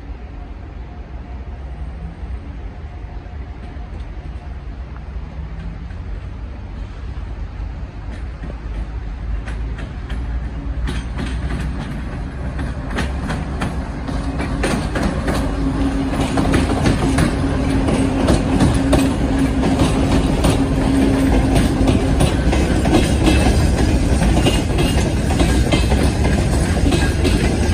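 A 2TE116U two-section diesel locomotive drawing a freight train passes slowly, its diesel engines running under a steady low rumble that grows louder as it nears, with a steady hum as it goes by. From about the middle onward the wheels click over rail joints, and the clicking carries on as the freight wagons roll past.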